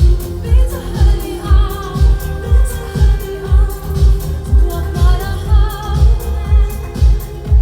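Live pop-schlager concert music: a steady four-on-the-floor dance beat with a kick drum about twice a second, under wavering sung melody lines.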